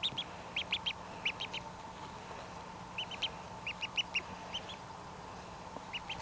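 Newly hatched duckling peeping: short, high-pitched peeps in quick runs of two to five, with brief pauses between the runs.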